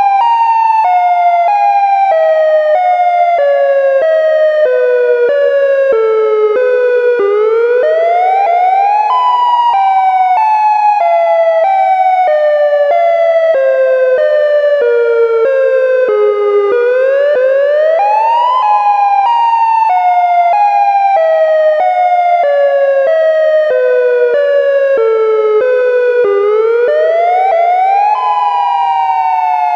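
Synthesized Federal Signal Modulator electronic outdoor warning siren in dual-tone Alternate Wail. Two tones alternate rapidly while the overall pitch rises quickly and then falls slowly, in about three wail cycles.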